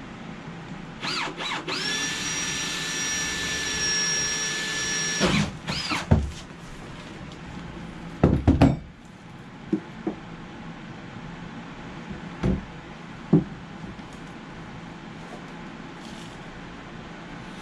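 Power drill revved briefly twice, then running at a steady high speed for about three seconds before winding down. Several separate knocks follow.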